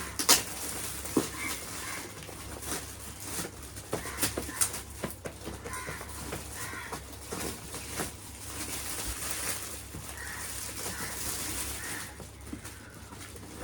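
Gift packaging being handled and opened: many scattered sharp clicks and crinkles, with faint chirping in the background.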